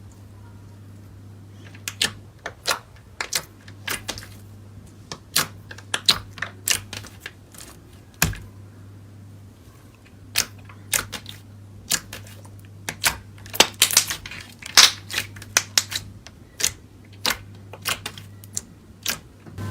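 Slime being worked by hand, giving a long run of irregular sharp pops and clicks, thickest near the middle of the stretch, over a faint steady low hum.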